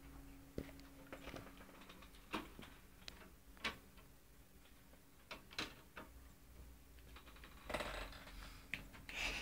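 Faint, scattered clicks and knocks of a screwdriver and hands working on a metal computer case, over a low steady hum.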